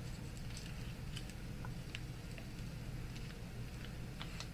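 Faint, scattered light clicks and ticks of tweezers handling tiny gemstones, over a steady low hum.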